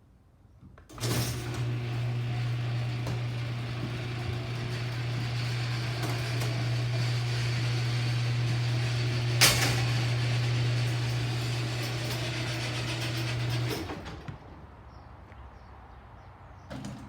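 Craftsman 1/2 HP garage door opener running through a door cycle: its motor starts abruptly with a steady low hum and runs for about thirteen seconds, with one sharp clack about two-thirds of the way through, then cuts off. The motor starts again just at the end.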